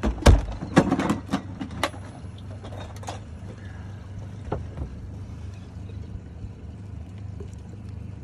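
A quick run of sharp clacks and rattles in the first three seconds, then a few lighter ticks: hard objects knocked about as pliers are dug out of a box. Under it, the steady low hum of the boat's outboard motor idling.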